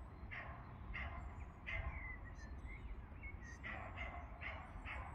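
A dog barking in short, repeated yaps, a couple near the start and a quick run of them in the last second and a half, with a few faint bird chirps in between.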